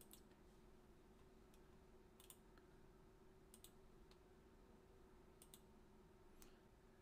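Faint computer mouse clicks, several of them quick double clicks, about seven in all, over a low steady hum.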